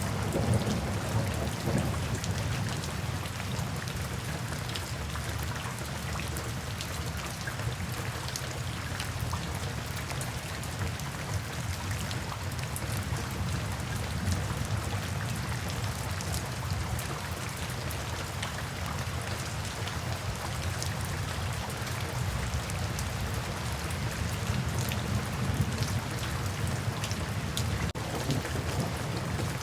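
Steady rain falling, with individual drops ticking. A low rumble of distant thunder fades over the first couple of seconds and builds again near the end.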